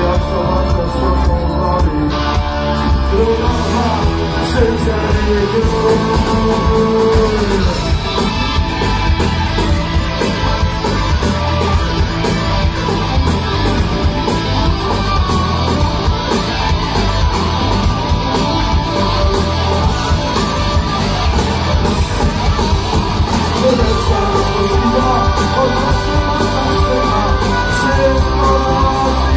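Rock band playing live and loud, with heavy bass and drums, heard from within the audience in a large hall.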